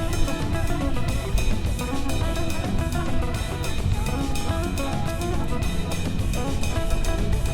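Music with guitar and a drum kit keeping a steady beat.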